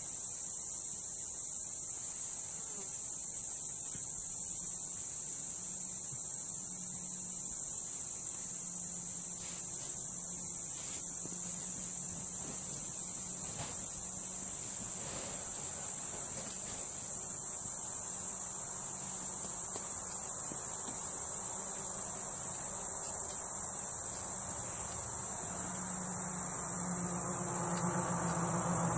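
Steady, high-pitched chorus of crickets trilling. Near the end a vehicle engine comes in under it and grows louder.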